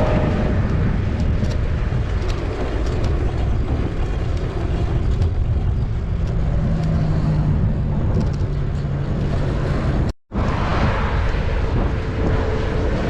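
Steady road noise while riding a touring bicycle along a highway: wind over the microphone and motor traffic going by, with a steadier vehicle hum for a few seconds in the middle. The sound drops out for an instant about ten seconds in.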